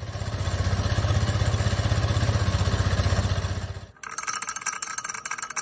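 Yamaha GTR Aero scooter's single-cylinder engine running with a fast, even low pulse, dying away a little before 4 s. Music starts right after.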